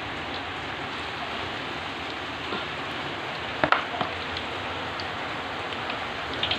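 Steady hiss of heavy rain together with corn fritters deep-frying in a wok of hot oil, with two short sharp clicks a little past the middle.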